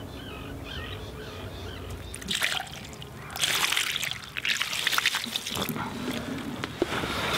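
Water poured from a plastic jug over a common carp lying on the wet mesh of an unhooking cradle, splashing and trickling off the fish and the mesh. There is a short splash about two seconds in, then a longer pour a second later.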